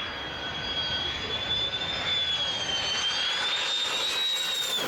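F-16 fighter jet flying over: a high turbofan whine over a rushing jet roar, dipping slightly in pitch about three seconds in and rising again, then cutting off abruptly near the end.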